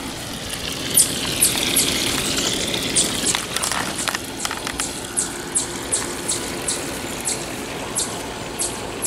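A garden hose running into a plastic kiddie pool, the stream gushing and splashing into the shallow water. Sharp high ticks sound over it about twice a second.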